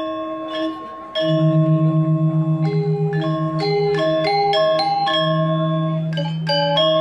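Balinese gamelan playing: bronze metallophones struck with mallets. Long ringing notes give way, about a second in, to a deep wavering tone that pulses a few times a second, and a melody of struck notes picks up over it and grows busier near the end.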